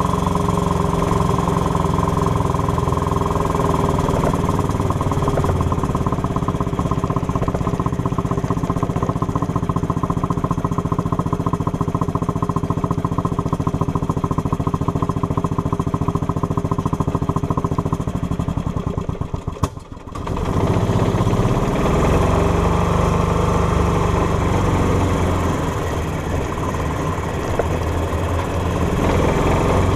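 Golf cart's small engine running steadily while the cart is driven. About twenty seconds in it stutters and nearly cuts out for about a second, then picks up again with its pitch rising.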